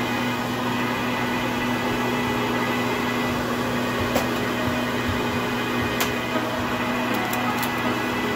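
A small motor running with a steady hum and whir, like an appliance fan, with a couple of faint clicks.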